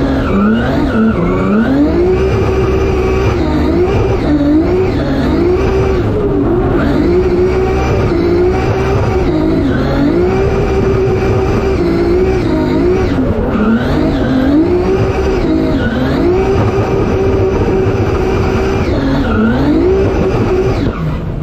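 Drift car engine at high revs, heard from inside the car: the pitch holds at a flat high ceiling, then dips and climbs back every second or two through the run, over the noise of spinning, sliding tyres.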